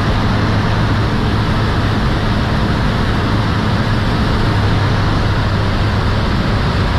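Steady drone of a jump plane's engine with airflow rushing through the cabin, a low hum holding level under the noise.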